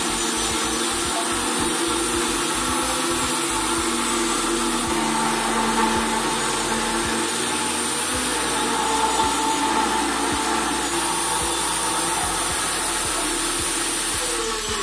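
Handheld electric circular saw running steadily as it cuts along the edge of a wooden door, trimming the door to fit its frame.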